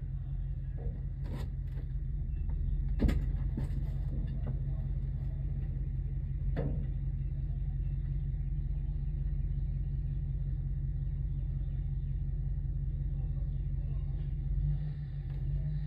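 An engine running steadily at idle, a constant low rumble, with a few sharp knocks in the first seven seconds, the loudest about three seconds in.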